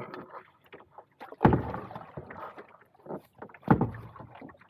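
Canoe being paddled: two strong paddle strokes about two seconds apart, each starting suddenly and trailing off in a short rush of water, with small splashes and hull knocks between them.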